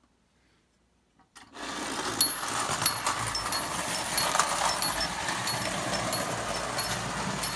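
Marx tin toy trains running on metal track: a steady clatter with many small repeated ticks that starts suddenly about a second and a half in.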